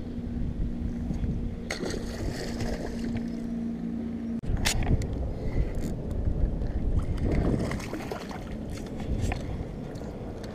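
Electric bow-mounted trolling motor humming steadily over wind rumble on the microphone. The hum cuts off abruptly about four seconds in, and a few knocks and rustles of handling follow.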